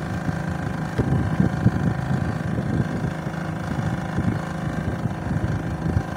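An engine runs steadily with an even drone, and wind buffets the microphone unevenly.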